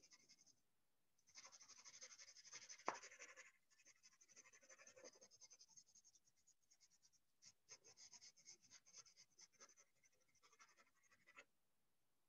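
Faint scratching of a soft 4B graphite pencil shading on sketchbook paper, in three spells of quick short strokes with brief pauses between.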